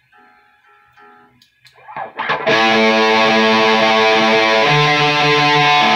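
Jackson electric guitar through a distorted amplifier, tuned to E standard: a few soft plucked notes as the pegs are adjusted, then a loud distorted chord rings out from about two seconds in and shifts to a lower chord near the five-second mark.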